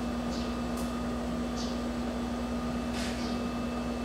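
Steady room hum with a constant low tone, from machine noise such as a projector fan or air conditioning, with a few faint soft rustles.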